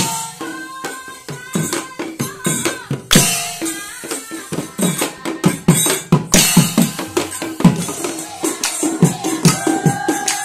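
Nagara naam, Assamese devotional folk singing: a group of women sing together over a fast, steady beat of hand claps and percussion with the nagara drums.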